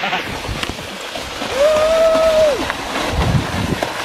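Plastic sled sliding and scraping over packed snow as it is pulled, a steady swishing noise. About halfway through a single held high note sounds for about a second.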